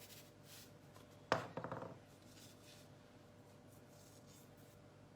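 A single sharp knock of a hard object in the kitchen about a second in, followed by a brief ringing rattle for about half a second, then faint room tone.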